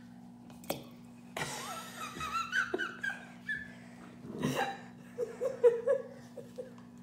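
People laughing at the table: a higher, giggling laugh in the first half and a lower laugh about two seconds later, over a steady low hum.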